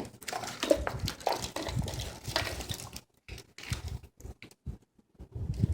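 Wiring harness being handled: irregular rustling and light clicks of wire loom and connectors, stopping and starting with short pauses.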